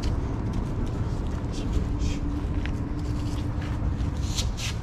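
A person scooting and shuffling down concrete grass-paver blocks, a string of short scuffs and scrapes over a steady low rumble.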